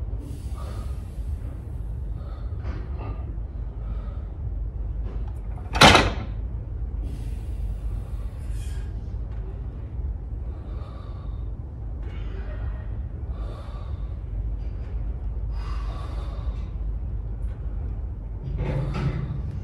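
Steady low hum of a gym, with one sharp bang about six seconds in and several short, soft hissing sounds in between.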